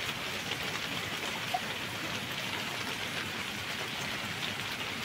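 Steady hiss of background noise, with one faint click about a second and a half in.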